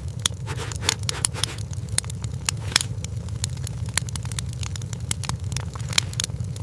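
Wood fire crackling, with sharp irregular pops and snaps over a steady low rumble of the burning fire.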